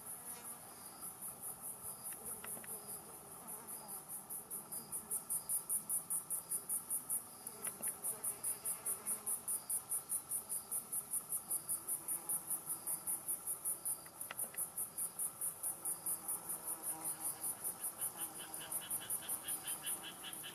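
Outdoor insect song: a high-pitched, rapidly pulsing call repeats steadily, and a second, lower-pitched pulsing insect song joins in near the end.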